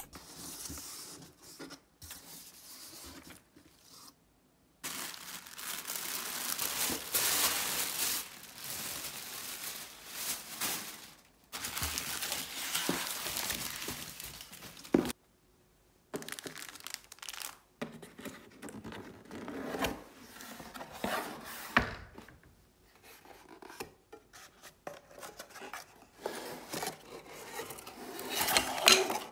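A cardboard box and its paper packaging being opened and handled: stretches of rustling, rubbing and tearing, with a few sharp knocks.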